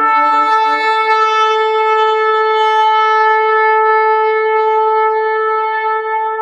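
One long horn blast held on a single steady note, with a fainter lower tone under it fading out in the first second.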